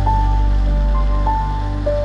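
Background music: a slow melody of held notes changing pitch every half second or so, over a steady low drone.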